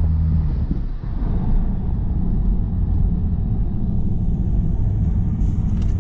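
Car cabin noise while driving at road speed: a steady low rumble of tyres and engine. A steady hum in the first second drops away about a second in.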